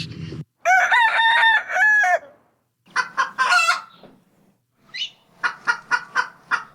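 A rooster crowing once, one long call, followed by two runs of short, quick clucks.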